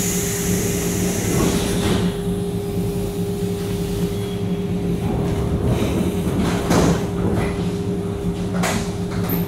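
Inside the carriage of an ET2M electric multiple unit: a steady electrical hum over a low rumble from the train, with a high hiss dying away in the first second and a few short knocks.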